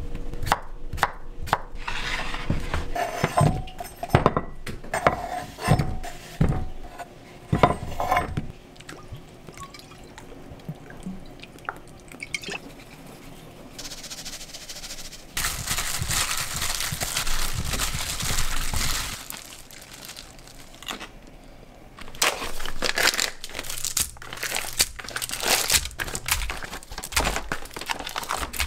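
Henckels chef's knife chopping cucumber on a wooden cutting board, a string of knocks over the first several seconds. Then seasonings are poured into a glass bowl in a spell of steady rustling noise. Near the end a plastic bag of imitation crab sticks crinkles as the sticks are taken out.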